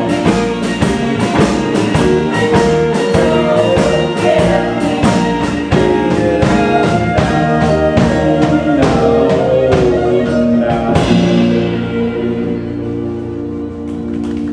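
Live band playing the instrumental close of a song, drums and guitars driving it along. About eleven seconds in the drums stop and a final chord is held, ringing out as the cymbal wash fades.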